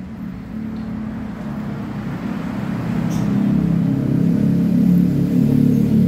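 A motor vehicle engine running, growing louder from about three seconds in.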